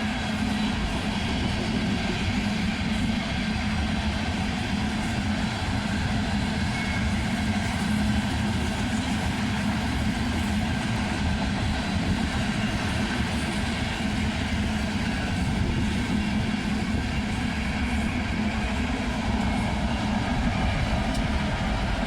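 A long train's cars rolling past on the rails, a steady, unbroken sound.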